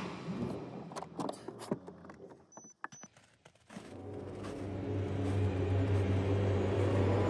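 A few sharp clicks and knocks, a moment of near-silence, then a truck engine running steadily at low revs, growing louder over the last few seconds.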